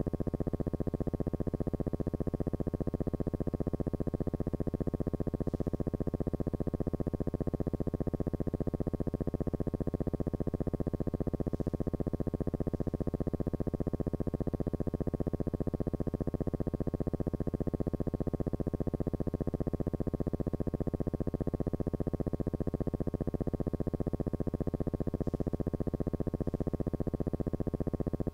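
A steady, unchanging low buzzing hum.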